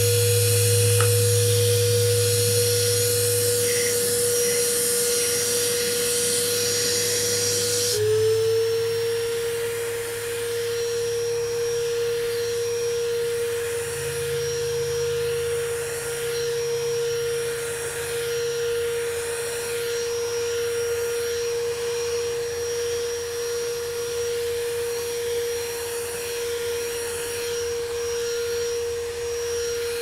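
Stihl SEA 20 battery handheld vacuum running, a steady high motor whine, while sucking up grit, grass seed and small rocks off a table mat, with a loud hiss of debris going in. About eight seconds in the hiss drops away and the whine dips and climbs back, as the surface is left clean.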